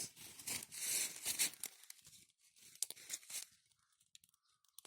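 Irregular crinkling and tearing noises, dense through the first second or two, then a few scattered crackles, falling almost quiet near the end.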